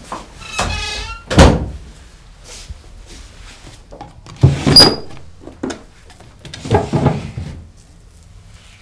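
A door creaks on its hinges and shuts with a loud thud about a second and a half in. Later come two more sharp knocks and rustling handling sounds.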